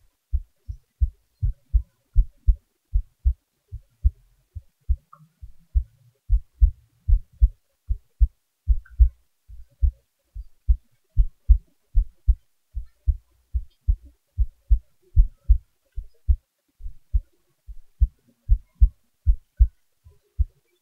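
A person's heartbeat, amplified: a steady, regular lub-dub rhythm of paired low thumps, a little over one beat a second.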